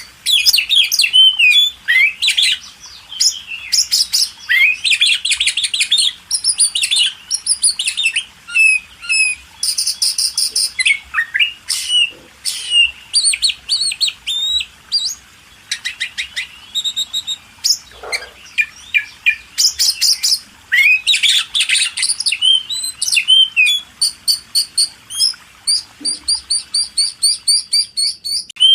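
Small birds chirping and trilling in rapid, overlapping calls. Near the end this settles into an evenly spaced run of short chirps, about four a second.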